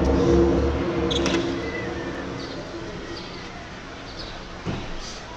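The so-called strange sky sound: a low, steady, many-toned droning groan heard over a city from an apartment balcony, easing off through the middle and starting to swell again near the end. Faint bird chirps sound a few times in the middle.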